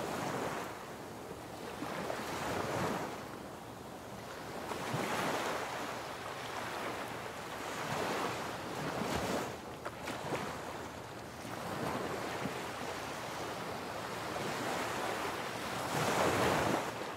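Ocean surf: waves breaking and washing in, rising and falling every two to three seconds, with the loudest swell near the end.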